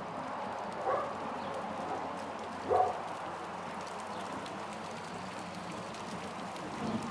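Soft rain falling on a city street, a steady patter over a low background hum, with two short louder sounds about one second and about three seconds in, the second the loudest.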